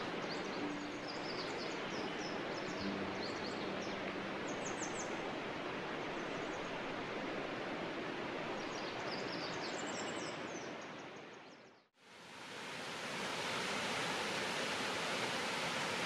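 Steady rushing of water, with small birds chirping high above it in the first few seconds and again near the middle. The water sound fades out almost to nothing about three quarters of the way through, then fades back in.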